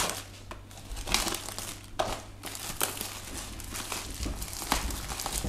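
Plastic wrapping crinkling as a cardboard sweet box is handled and opened, in irregular rustles with small clicks and taps.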